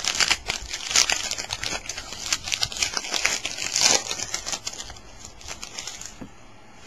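Crinkling and rustling of a trading-card pack wrapper and cards being handled, thick for the first few seconds, then thinning out about five seconds in.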